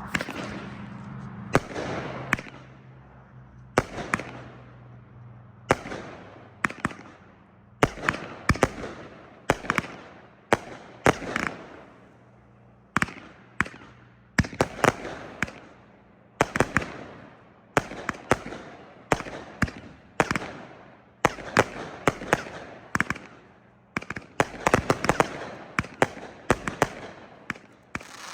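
Consumer aerial fireworks going off: a 48-shot 500-gram cake and artillery shells firing together, a sharp report about every half-second to second, each fading off, coming faster and more tightly bunched near the end.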